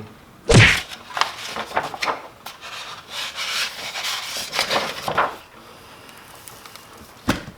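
A sudden loud knock, followed by irregular rubbing and scraping noises for several seconds, then a single click near the end.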